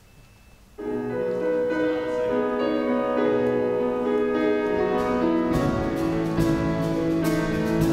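Church worship band starting a song intro: keyboard chords come in about a second in and are held, and drums and a fuller low end join a little past halfway.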